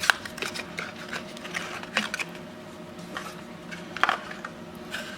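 Scattered small clicks, taps and rustles of product packaging being handled on a table, the sharpest right at the start and about two and four seconds in, over a faint steady hum.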